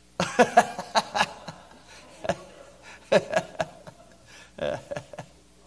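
A few people laughing in short bursts: a burst at the start, another about three seconds in, and a smaller one near the end.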